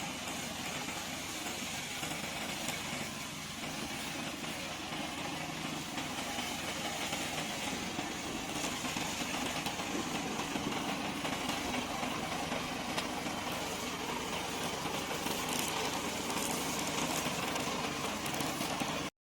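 Remote-control slope mower's engine running steadily, then cutting off suddenly near the end.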